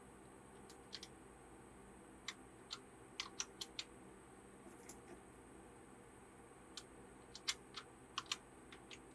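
Faint, irregular sharp clicks and taps, some coming in quick runs, over a low steady hiss.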